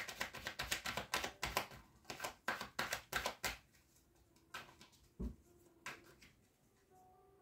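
Tarot cards being shuffled by hand: a rapid run of crisp card clicks that stops about three and a half seconds in. After that come a few single taps of cards being handled, over faint, soft background music.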